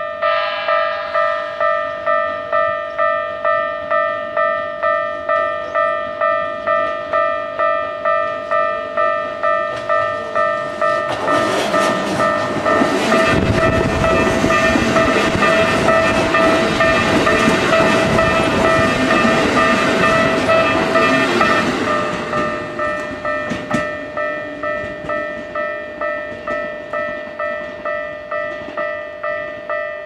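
Japanese level crossing warning bell ringing steadily, a repeating electronic ding about one and a half times a second. Roughly a third of the way in, a Keikyu 1500 series electric train runs over the crossing for about ten seconds, its wheels and running gear drowning the bell. The bell then rings on alone.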